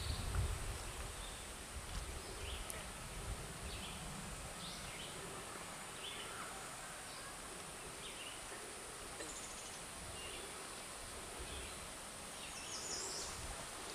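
Faint woodland ambience: scattered short bird chirps over a steady high hiss, with a low rumble in the first second or so.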